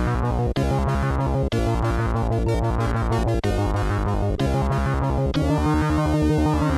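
Chiptune demo music from the Commodore 128's SID sound chip: a fast pulsing synth bass under repeating sweeping chords, with a held lead note coming in about five seconds in and bending down near the end.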